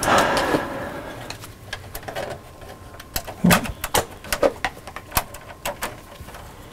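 Gloved hands working a stiff electrical conductor into a metal breaker panel: a brief rustle and scrape at the start, then scattered small clicks and taps as the wire is bent and positioned among the breakers.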